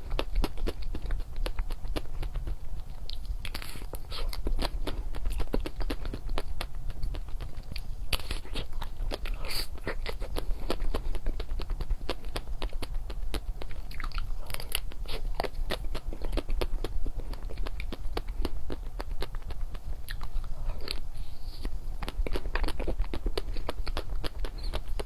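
Close-miked eating of chocolates: steady crunching, biting and chewing with dense small crackles throughout, over a steady low hum.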